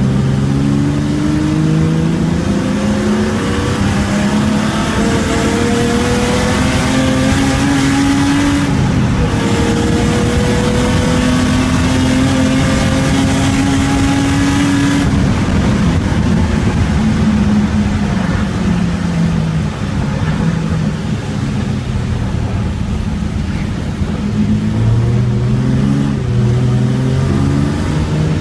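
Race car engine heard from inside the cabin, accelerating hard through the gears: the revs climb in steps with drops at the gear changes for about fifteen seconds. Then it lifts off the throttle and the revs fall as the car slows, with short rev rises near the end as it downshifts.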